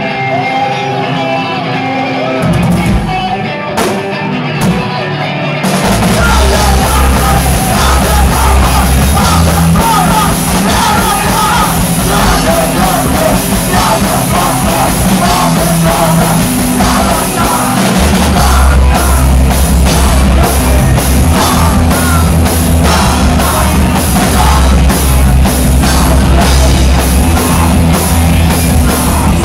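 A screamo band playing live: a thinner guitar opening, then about six seconds in the full band comes in with drums, bass guitar and vocals, loud and distorted.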